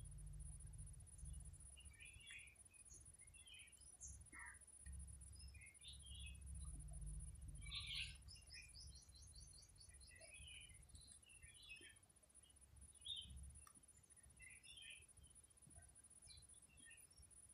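Faint, scattered bird chirps and tweets, with a quick run of high notes about eight seconds in, over a low rumble that fades out partway through.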